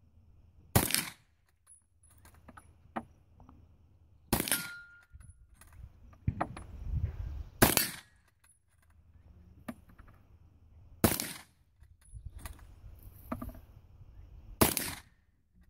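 Five shots from a bolt-action Krag-Jorgensen rifle, evenly spaced about three and a half seconds apart, with the clicks of the bolt being worked between shots.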